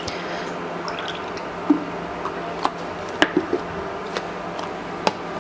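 Cream pouring from a carton into a bowl in a steady stream, with a few light clicks and taps in the second half as the carton is handled.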